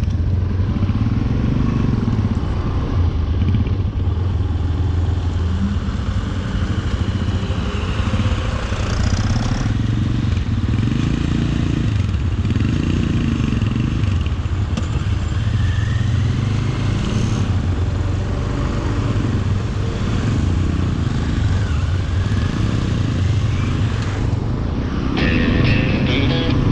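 Benelli motorcycle engine running on the move, its note rising and falling repeatedly as the rider accelerates, with wind noise on the microphone. Music comes in near the end.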